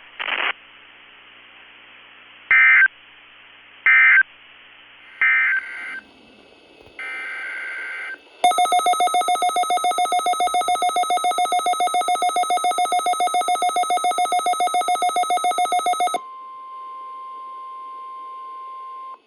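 Weather radio alert test signal: three short bursts of digital SAME header data, then a harsh, rapidly pulsing electronic alert tone for about eight seconds. It ends in a steady single-pitch warning alarm tone for about three seconds.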